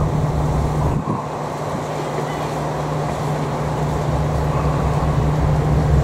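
Diesel railcar's engine running as the train approaches: a steady low drone that dips about a second in and grows louder again near the end as the train nears.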